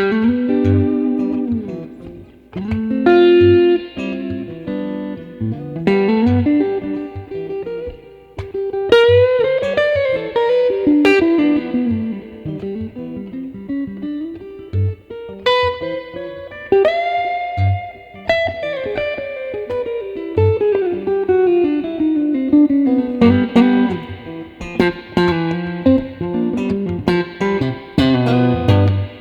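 Electric guitar with an Mtone SSS single-coil pickup set, played with a clean tone: expressive lead lines full of string bends and slides, with some chords and held, sustaining notes.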